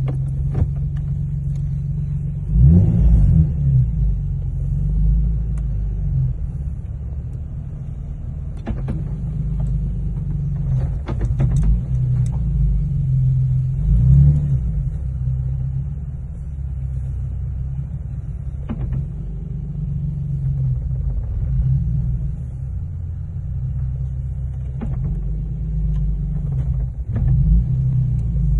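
Lexus GS 300 with a swapped-in ZF manual gearbox driving: the engine's low rumble rises and falls with throttle and shifts, swelling about three seconds in, around the middle and near the end, with scattered short clicks and knocks.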